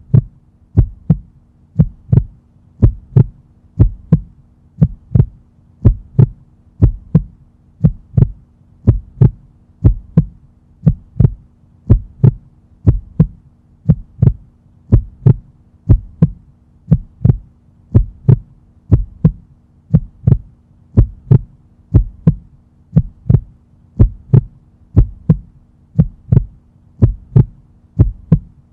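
Heartbeat sound effect: a steady lub-dub heartbeat, paired thumps about once a second, with a faint steady hum underneath.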